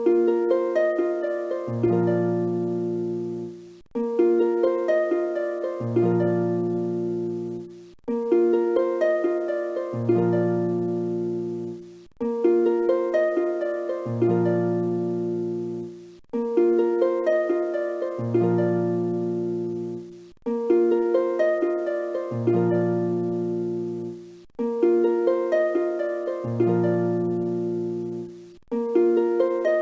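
Background music: a short melody of plucked notes that fade quickly, looping about every four seconds with a brief dip before each repeat.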